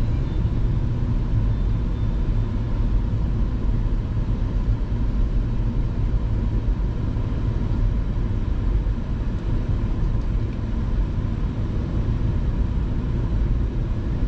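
Car driving up a mountain road: a steady low rumble of engine and road noise.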